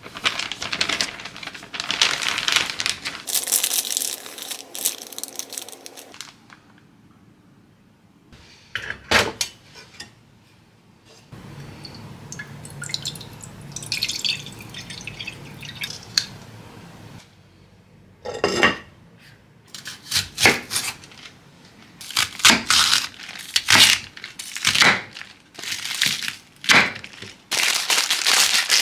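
Kitchen handling sounds in turn. First plastic zip-top bag rustling, then water poured into a clay pot over kombu for several seconds. The last part is a series of sharp clicks, and near the end plastic food packaging crinkling.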